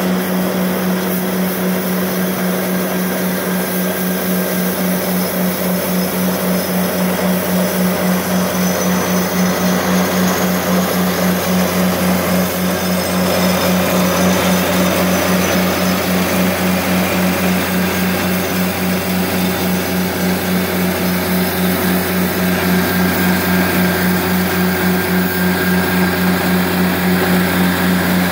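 Walker MD mower's Kubota D722 three-cylinder diesel engine running steadily under load while it drives a front broom attachment sweeping concrete, with a low, evenly pulsing hum.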